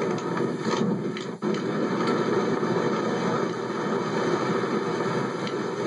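Steady rushing wind noise on the camera's microphone during a hang glider flight in high wind, heard through a TV speaker, with a brief dropout about a second and a half in.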